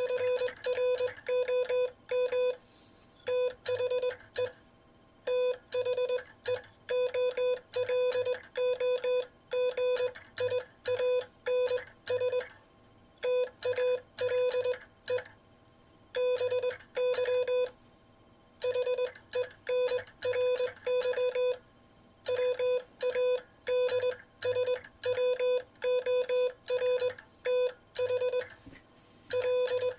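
Morse code sent on a Vibroplex semi-automatic bug key, heard as an on-off keyed tone of about 500 Hz: quick dots and longer dashes with short pauses between words. The timing is a little uneven, as the sender is still learning the classic bug sending style.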